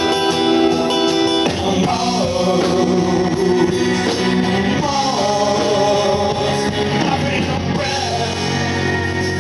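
Live rock band playing, a man singing lead over acoustic and electric guitars, bass and keyboard; the chord changes about a second and a half in.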